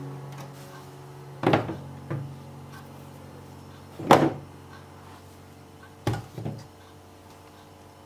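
Vegetables being set down in a clear plastic fridge crisper drawer: about five knocks and thunks, the loudest about four seconds in, as carrots go into the drawer.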